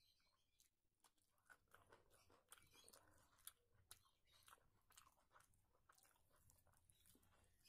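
Faint close-up chewing of a mouthful of rice and curry eaten by hand, with many short wet mouth clicks, a few each second.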